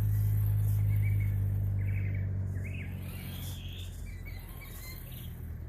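Small birds chirping in short calls, over a loud steady low hum that fades off a few seconds in.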